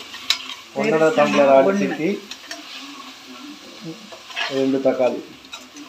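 Onions, tomatoes and green chillies sizzling in hot oil in an aluminium pressure cooker while a perforated metal skimmer stirs and scrapes against the pan. A voice talks over it twice.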